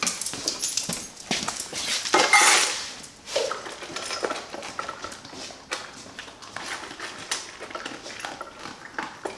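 Two dogs eating dry food from stainless-steel bowls: a string of short clicks and clinks as muzzles, collar tags and kibble knock against the metal bowls, with a louder rattling burst about two seconds in.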